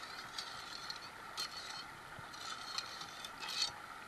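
Gravel and sand being tipped and scraped onto a sluice box: a handful of short, scratchy rattling bursts over a steady rush of river water.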